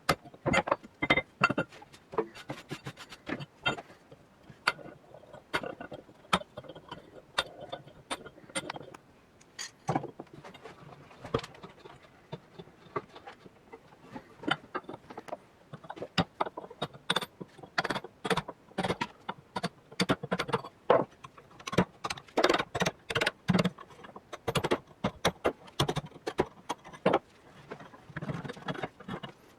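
Irregular metallic clicks, taps and scrapes of simple hand tools working the rusty, hand-forged iron head of an old pick/hoe, some strikes sharp and loud.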